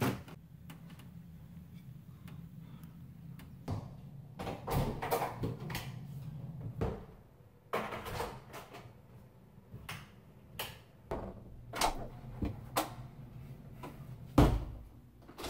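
Scattered knocks, bumps and rustling from moving about a house and handling a door, over a faint low steady hum; the loudest thump comes near the end.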